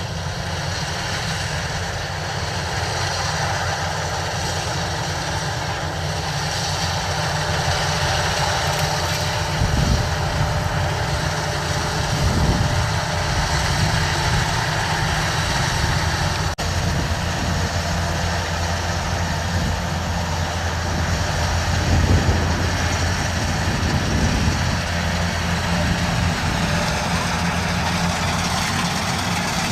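Kubota DC-93 rice combine harvester running steadily in the field: a diesel engine hum under a broad mechanical rush from the machine's working parts, swelling briefly a few times.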